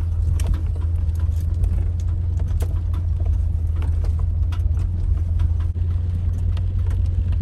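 Jeep driving slowly over a rough dirt track: a steady low engine and road rumble, with frequent small knocks and rattles from the bumps.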